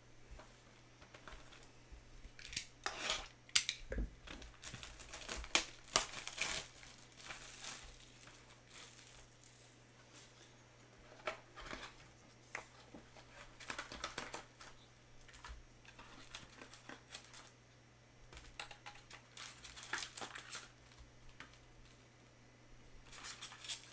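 Plastic shrink wrap crinkling and tearing and cardboard rustling as a sealed Topps Chrome trading-card hobby box is unwrapped and opened, in irregular crackles and rustles with a few sharper snaps.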